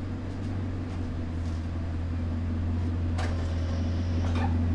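Bugatti Chiron's quad-turbo W16 engine idling steadily with a low, even hum, and a couple of short clicks near the end.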